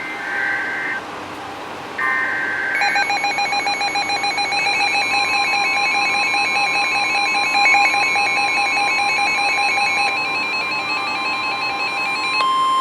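NOAA Weather Radio SAME header data bursts: two short buzzy digital chirps in the first three seconds. Then weather radio receivers' alarms beep rapidly in a pulsing pattern, and about five seconds in the steady weather radio alert tone joins them. Together they mark the start of a new severe thunderstorm warning broadcast.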